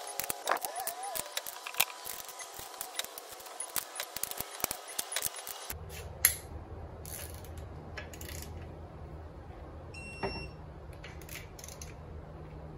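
Torque wrench ratcheting in rapid clicks as the TR6060 transmission case bolts are run down, stopping about six seconds in. A single sharp click follows, and a short electronic beep sounds near ten seconds.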